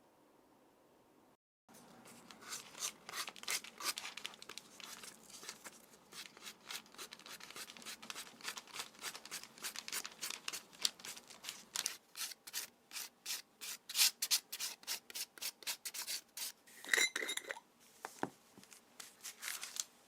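Leather being rubbed in quick, repeated back-and-forth strokes, with a brief squeak near the end.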